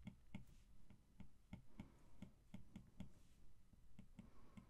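Faint, quick ticks of an Apple Pencil tip tapping the iPad's glass screen, about three to four a second, as short strokes are drawn.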